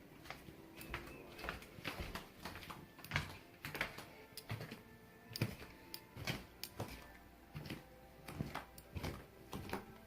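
Footsteps, about one knock every half to one second, walking through a house and down to the basement, with faint music playing in the background.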